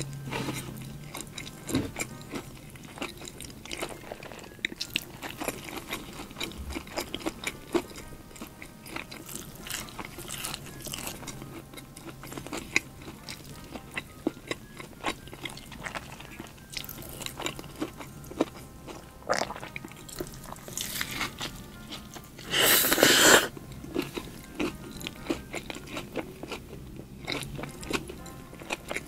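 Close-miked eating: a crispy-coated fried chicken burger bitten, crunched and chewed, with many small clicks and crackles of the coating and wet mouth sounds. About two-thirds of the way through, a louder crackle lasts about a second.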